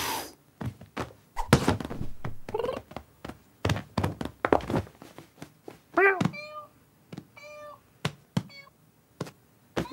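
Cartoon cat sound effects: a run of thuds and scuffles as the cats jump and land, mixed with meows and short chirping cat calls. The loudest meow comes about six seconds in and is followed by a string of quick chirps.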